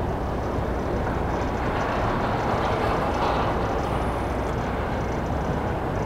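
Steady outdoor rumble and hiss that swells slightly a few seconds in.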